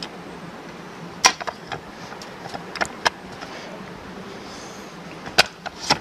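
Riding-lawnmower transaxle with its wheels on a steel stand being handled, giving a few sharp knocks and clicks: a small cluster about a second in, two more near three seconds, and the loudest pair near the end.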